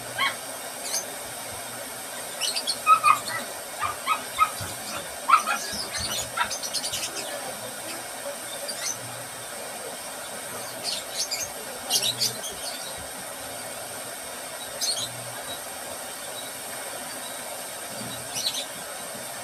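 Short, high-pitched animal chirps and squeaks at irregular intervals over a steady background hiss.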